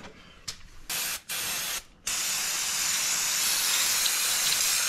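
Aerosol spray can spraying in two short bursts about a second in, then held down in one long steady hiss from about two seconds in.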